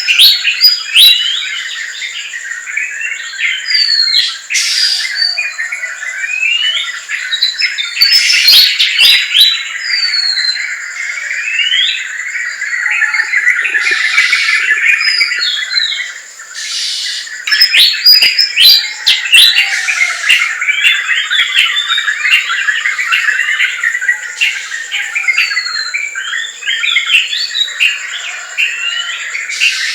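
Dense forest bird chorus: many birds chirping, whistling and trilling at once in a continuous, overlapping jumble of short calls, over a steady high-pitched tone.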